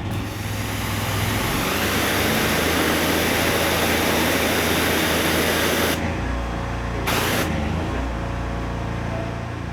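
Engine-driven pressure washer: the engine runs steadily while the high-pressure spray hisses for about six seconds, stops, then gives one short blast about seven seconds in.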